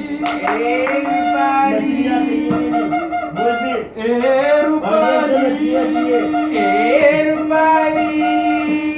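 Several male voices singing wordlessly: one long low held note, broken once about halfway and taken up again, under warbling, sliding vocal lines.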